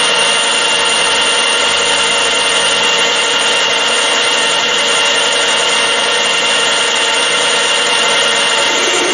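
Metal lathe running under power while the tool of a copy attachment turns a metal bar, following the template: a steady high whine over the hiss of the cut.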